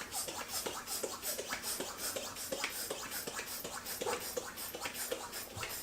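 Latex twisting balloon being handled and worked, giving a quick string of small clicks and short squeaks.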